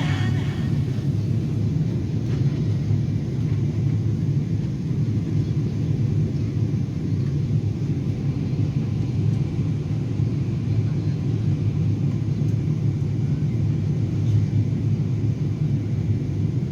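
Steady low rumble of an Airbus A320 heard from inside the passenger cabin, even and unchanging throughout.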